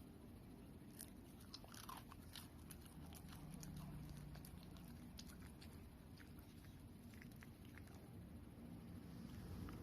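Shiba Inu chewing bread: faint, irregular crunchy clicks of its mouth and teeth working, coming thickly for several seconds and thinning out near the end.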